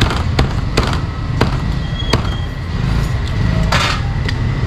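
Cleaver chopping cooked meat on a wooden block: about five sharp, irregular strikes in the first two seconds, then a longer scraping clatter near the end, over a steady low rumble of market traffic.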